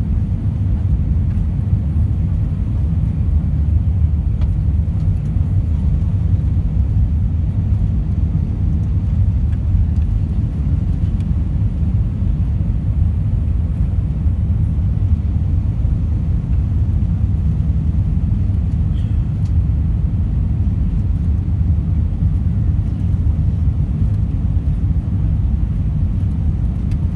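Steady low cabin rumble inside an Airbus A320-232 on final approach, the engines and the airflow past the airframe heard through the fuselage, with no distinct events.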